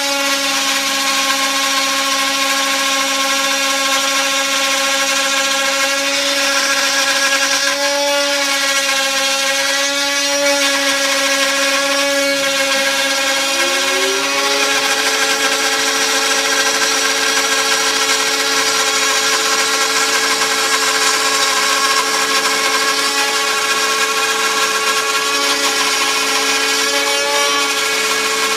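TTA 3020 desktop CNC router milling wood flooring: the spindle and its stepper motors run with a steady whine made of several pitches over the cutting noise. About halfway through, a second tone slides up in pitch and then holds.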